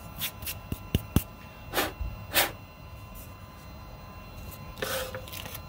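Hands handling a small engraved plywood sign and blue masking tape: a few light knocks in the first second or so, then short brushing rustles.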